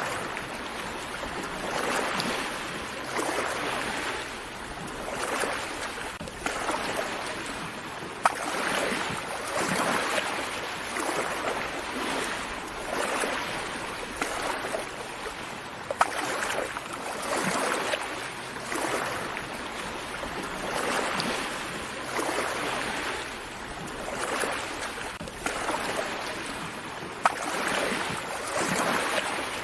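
Small sea waves breaking and washing up on a beach, swelling and easing every two to three seconds. Three brief sharp clicks stand out over the surf.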